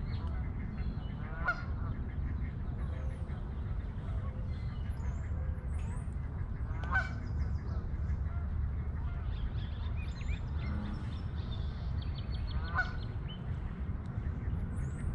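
A goose honking three times, several seconds apart, over a steady low rumble, with small birds chirping faintly.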